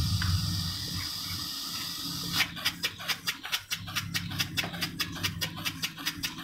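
A homemade miniature steam engine starts running: a steady hiss, then from about two and a half seconds in an even chuffing of exhaust puffs, about five a second, as the saw-blade flywheel spins up.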